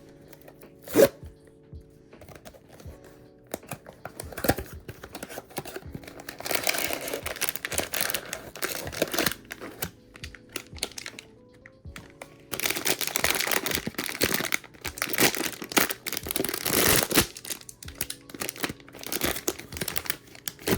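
Blind box packaging being torn open and crinkled, in two long spells of crackling, with a sharp knock about a second in. Soft background music plays underneath.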